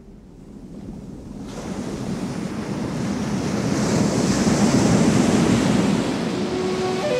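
Ocean-surf rushing sound swelling up from faint to loud over the first few seconds and then holding, the intro of a soundtrack; the first flute-like notes come in at the very end.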